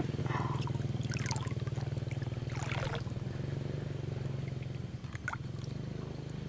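A small engine running steadily at an even, low-pitched hum, with fast regular pulsing.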